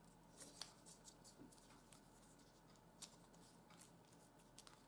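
Faint handling sounds of a small plastic gadget and its parts in the hands: scattered light clicks and soft rustles, with a sharper click about three seconds in and a few more near the end.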